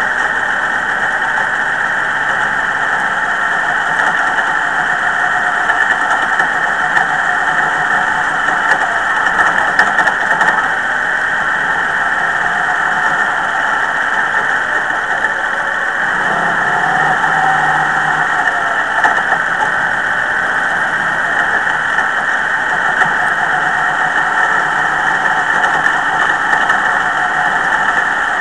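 Dirt modified race car's V8 engine running hard at racing speed, heard loud and steady from an onboard camera in the car. The engine note changes briefly a little past halfway.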